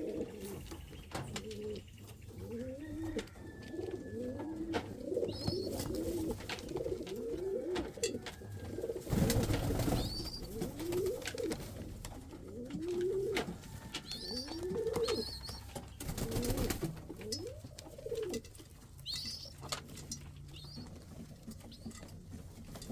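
Domestic pigeons cooing over and over, with short high chirps now and then and two brief bursts of noise about nine and sixteen seconds in.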